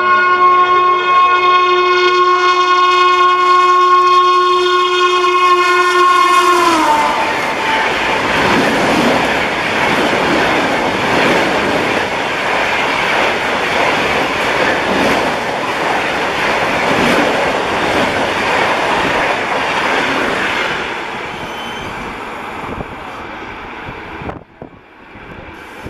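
Lucknow Shatabdi Express passing at high speed, around 130 km/h: the locomotive's horn sounds one long, steady chord-like blast and drops in pitch as it passes, about seven seconds in. Then comes the loud rush of the coaches speeding through, with wheels clattering over the rail joints, fading away after about twenty seconds. The sound cuts off abruptly near the end.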